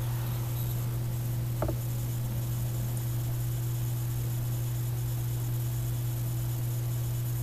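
Steady low electrical hum with background hiss, and one short click about a second and a half in.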